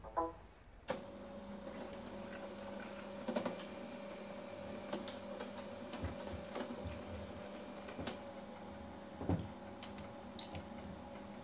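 Samsung CLP-365 colour laser printer rebooting after a firmware reset. After a brief tone near the start, its motors start about a second in and run steadily through a warm-up cycle, with scattered clicks and knocks.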